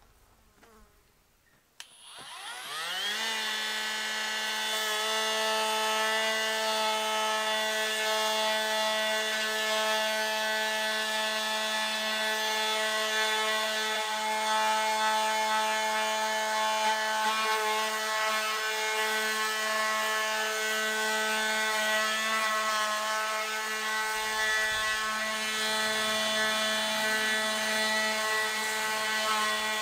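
Cordless oscillating multi-tool with a triangular sanding pad starting about two seconds in, its pitch rising quickly to a steady high buzz, then running while sanding the weathered wood of an old wagon wheel.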